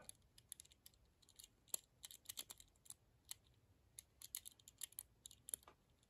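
Faint, irregular clicking of a brass Master Lock 875 combination padlock's number wheels being turned a notch at a time by thumb. The shackle is held under tension to feel which wheel binds and which turns loose, decoding the combination.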